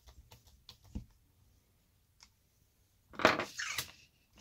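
Small clicks and a light knock from handling an RC car wheel and hex nut driver as the wheel is fitted, then a louder clatter of hard parts lasting under a second near the end.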